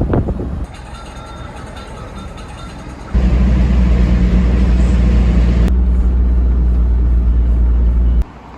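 Moderate background noise, then from about three seconds in a loud, steady, low engine rumble with a hum, which cuts off suddenly near the end.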